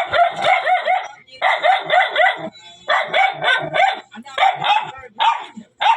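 A dog yipping and barking excitedly in quick runs of short, high-pitched yelps, several a second, with brief pauses between runs: the excited play of a pet greeting its owner home.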